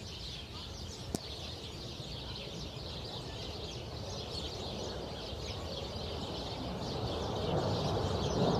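Many birds chirping over a low rumble that grows louder toward the end, with one sharp click about a second in.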